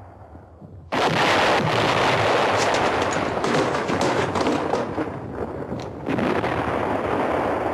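Battle gunfire from a war film's soundtrack. About a second in, dense gunfire with rapid machine-gun bursts starts suddenly; it eases briefly around five seconds in, then picks up again.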